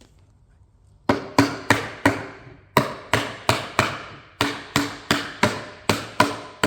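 Rubber mallet knocking a phenolic plywood shelf panel down onto its tenons: a steady run of sharp knocks, about three a second in groups of four, starting about a second in.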